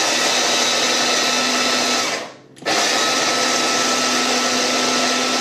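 SilverCrest electric mini chopper grinding dry oats into flour: the motor runs steadily, cuts out briefly a little over two seconds in, then runs again for a second burst.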